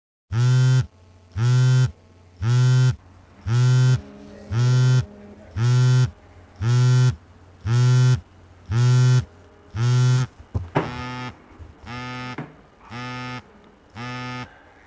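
Mobile phone vibrating against a bedside table, buzzing in regular pulses about once a second. After a knock about ten seconds in, the buzzing carries on more quietly as the phone is held in the hand.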